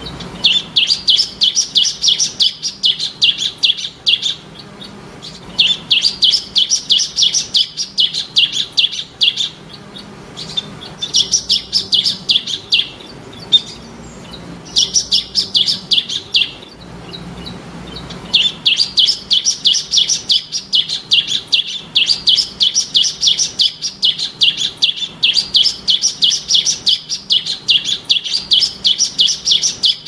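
Bar-winged prinia (ciblek) singing: runs of rapid, high, repeated chirping notes, each run lasting two to four seconds, with short pauses between them.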